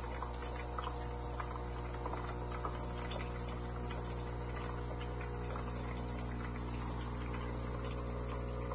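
Nescafé Dolce Gusto coffee machine's vibratory water pump running with a steady buzzing hum as it pushes water through to the jug, with faint crackling of water.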